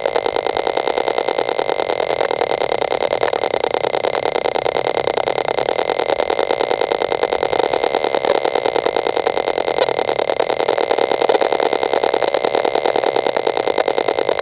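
Radio-frequency meter's audio output sounding the microwave signal of a mast-mounted Wi-Fi router: a loud, steady, rapidly pulsing electronic buzz with a thin whistle-like tone on top, the pulses of the router's constant transmissions.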